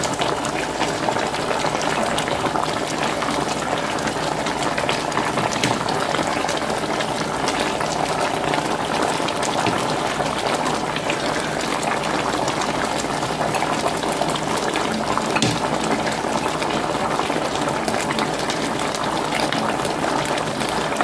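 Pork shoulder and vegetables in gravy bubbling in an enamel roasting pan: a steady simmer peppered with many small pops.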